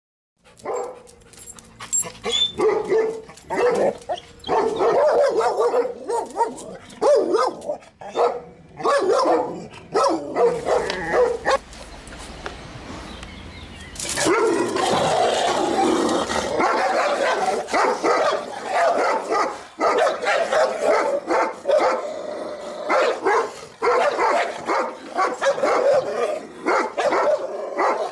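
A black Labrador and a white Maremma sheepdog barking aggressively at each other across a wooden box door, in repeated bursts with short pauses.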